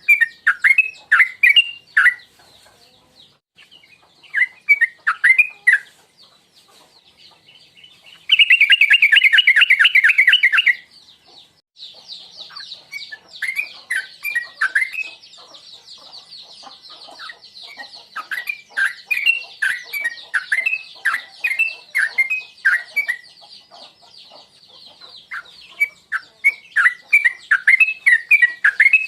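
Yellow-vented bulbul (trucukan) singing in bouts of quick, bubbling, sweeping notes, with a loud, fast, dense trill a little past a third of the way in. A steady high-pitched hiss sits under the song from about twelve seconds in.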